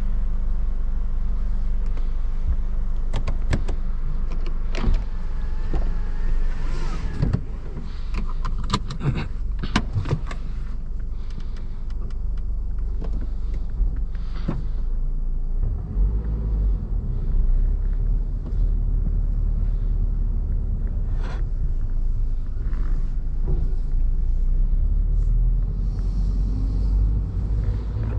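2023 Subaru BRZ's 2.4-litre flat-four engine running, heard from inside the cabin, with a run of sharp clicks and knocks in the first ten seconds or so as the centre-console controls are handled. About halfway through the low engine rumble grows heavier as the car drives slowly.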